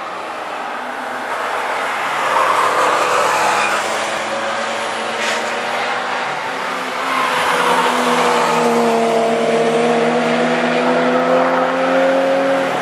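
Cars passing a trackside spot, with engines running and tyre noise. Over the last few seconds one engine's pitch rises steadily as the car accelerates closer.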